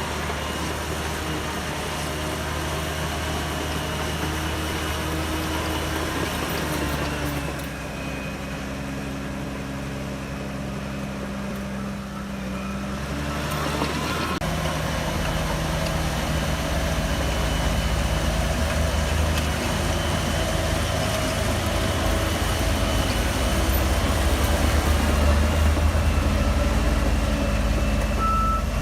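Diesel engine of a Shantui DH17C3 crawler bulldozer running while it works soil. Its pitch shifts in the middle and it runs louder and harder from about halfway on. A reversing alarm beeps briefly near the end.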